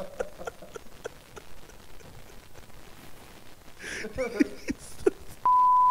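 A man laughs softly and breathily into a handheld microphone, with faint clicks of the mic being handled. Near the end a steady, loud single-pitch censor beep cuts in.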